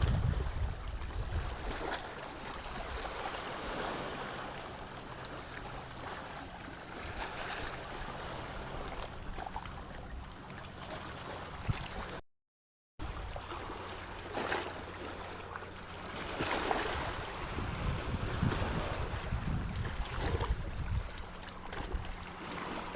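Seaside wind and waves with wind buffeting the microphone, over a faint steady low hum. The sound drops out completely for about half a second around the middle.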